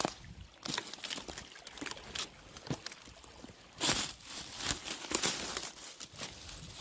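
Footsteps crunching on the forest floor, uneven steps with the loudest about four and five seconds in.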